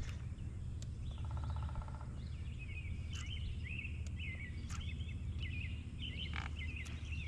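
Songbird singing: a run of short, quick chirped notes repeating over and over, starting a couple of seconds in, over a steady low background rumble. A short buzzing rattle comes about a second in.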